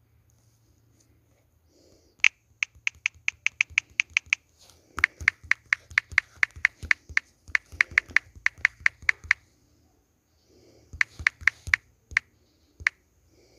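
Three runs of quick, sharp, evenly spaced clicks, about five to seven a second, like keys being pressed. The middle run is the longest.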